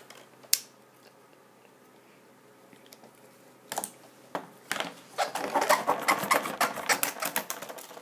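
A single click, then, from about four seconds in, some three seconds of rapid light clicking and clattering as a cheap multi-tool and discs are handled on a tabletop.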